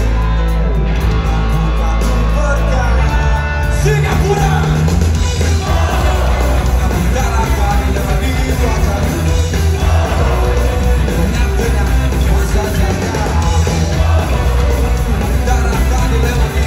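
Live rock band playing loud through a PA: electric guitars, bass and drums with a singer, heard through a phone's microphone in the crowd with heavy bass. The sound grows fuller about four seconds in.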